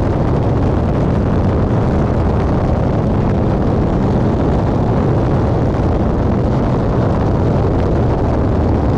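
Steady, even roar of a Rockwell Commander 112TC in flight, heard inside the cabin: its turbocharged four-cylinder piston engine and propeller running at constant power, with airflow noise over the airframe.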